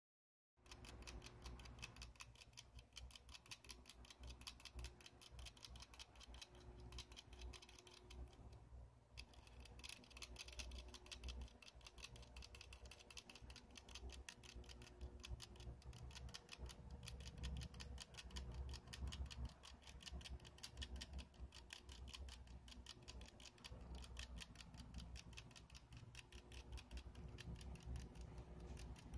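Hamster licking the metal spout of a drinking bottle, a rapid run of tiny ticks from the spout's ball valve, with a brief pause about eight seconds in.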